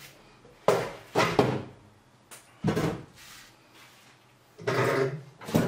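A handful of separate knocks and clunks of hard objects being handled, about five in all, spread over the few seconds with quiet between them.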